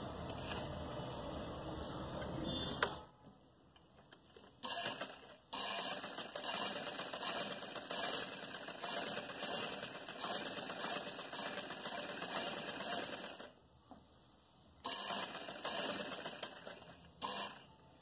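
Domestic sewing machine stitching a seam through cotton fabric. It runs in spells: about three seconds, a short burst, a long run of about eight seconds, then another run and a final brief burst, with short stops between as the fabric is adjusted.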